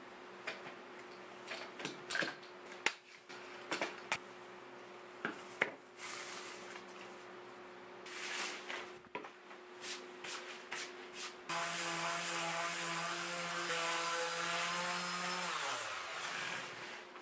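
Clicks, knocks and rubbing of wooden pieces and spring clamps being handled. About 11 seconds in, an electric palm sander starts suddenly, runs steadily for about four seconds, then winds down with a falling pitch near the end.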